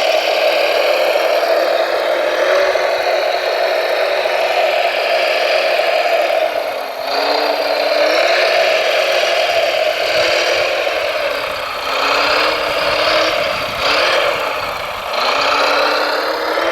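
Electric motors and gearboxes of radio-controlled model construction vehicles whining steadily. The pitch drops and rises again about three times as they slow and speed up.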